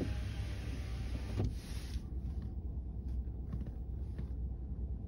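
Wind rumbling on the phone's microphone, with a hiss that fades about two seconds in and a few faint knocks.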